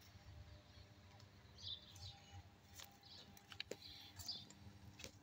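Near silence with a few faint, short bird chirps over a low, steady hum, and a few light clicks.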